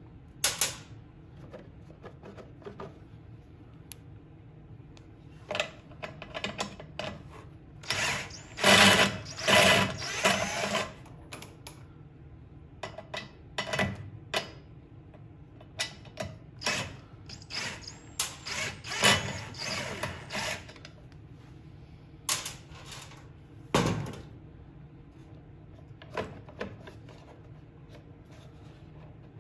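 Short runs of a power driver turning 8 mm bolts on a snowblower's plastic engine shroud, the two longest about a third and two thirds of the way through, between scattered clicks and knocks of tools and plastic parts being handled.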